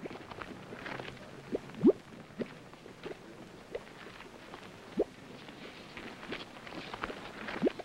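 Wooden paddle stirring tallow grease in a metal pot: a few soft scrapes and short rising squeaks over a faint hiss.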